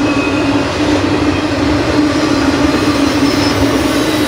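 Intermodal freight train cars, double-stack well cars and trailers on flat cars, rolling past at speed. Steel wheels on the rails make a loud, steady noise with a steady low hum running through it.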